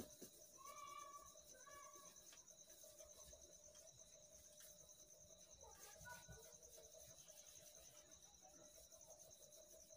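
Near silence, with a cricket's faint, steady high trill.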